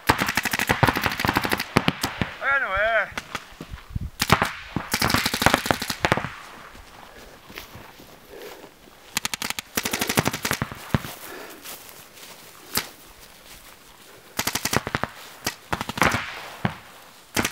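Paintball markers firing in long, very rapid strings, several runs of shots a couple of seconds each with short pauses between. A wavering shout comes between the first two runs.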